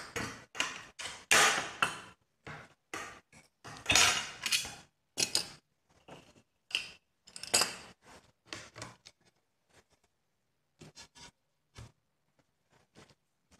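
Metal binder clips being pried open and taken off a pair of glass plates, a rapid run of sharp clicks and clinks of metal on glass and glass on the countertop. The clicks come thick and fast for about eight seconds, then thin out to a few scattered taps.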